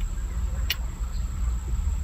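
Steady low rumble with one small sharp click a little under a second in, while set screws are being worked into a shift knob adapter.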